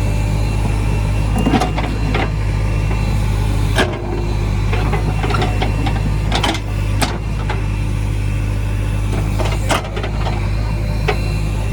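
Heavy diesel engine running steadily under a low hum, with several sharp metallic clanks and knocks at irregular intervals.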